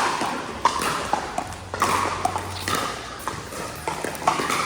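Pickleball paddles striking the ball in a rally: sharp pops roughly once a second.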